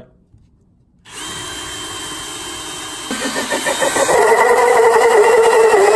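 Cordless drill spinning a hole saw, starting about a second in. Around three seconds in the saw bites into an OSB subfloor, and the motor runs louder and slightly lower under the load of the cut.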